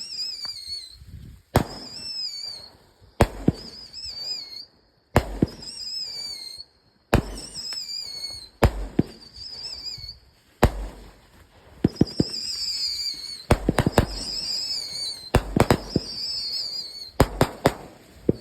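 A 500 g, 42-shot 'Jackhammer' firework cake firing shot after shot, each shot a sharp crack followed by a wavering, slightly falling whistle. Early on the shots come about every one and a half to two seconds. After about eleven seconds they come faster, with several cracks bunched together.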